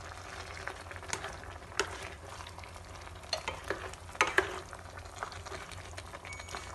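A spatula stirring a pot of pinakbet, wet vegetables in a thin sauce: soft shifting and slopping, with several sharp knocks of the spatula against the pot, loudest a little past the middle. Under it runs a steady simmering sizzle.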